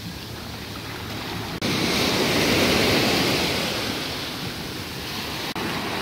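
Small waves breaking and washing up a sandy beach, a steady rush of surf. It jumps louder about a second and a half in, swells, then eases off.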